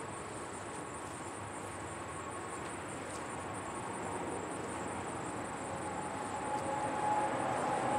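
Road traffic drone that swells over the last few seconds as a motor vehicle approaches, its engine hum coming in, over a steady high trill of insects chirping.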